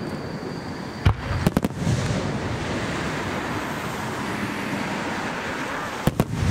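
Aerial fireworks shells bursting. A sharp bang comes about a second in, then a quick cluster of three more bangs, then continuous crackling and rumbling echo. Two more bangs come near the end.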